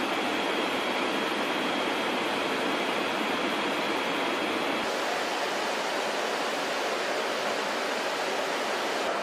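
Steady rushing cockpit noise of a large military aircraft in flight, engine and airflow noise, with a faint high steady tone in the first half. About five seconds in the noise changes character and the tone drops out.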